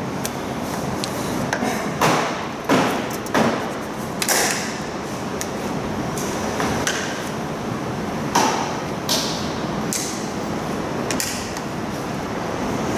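Scattered knocks, clicks and short scraping bursts from work and handling in an auto glass shop, over a steady background hiss.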